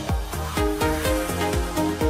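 Electronic dance music with a steady kick drum about two beats a second, hi-hats between the beats and a synth melody.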